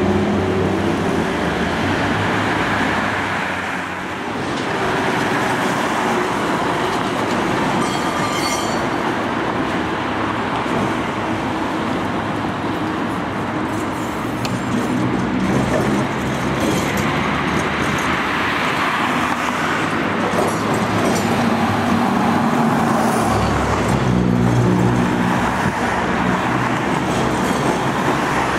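Road traffic on a city street: cars going by and a W-class tram running on its street track, a steady mixed noise that dips briefly about four seconds in.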